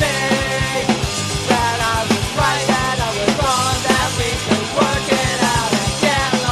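Punk rock band playing on a demo recording, with a steady drum beat throughout.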